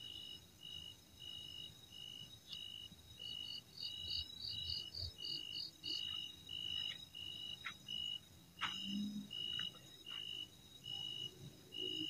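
Night insects chirping in an even rhythm, about two short high chirps a second, over a steady high insect drone. For a few seconds a second, faster pulsing call joins in higher up, and a few faint clicks and knocks come through.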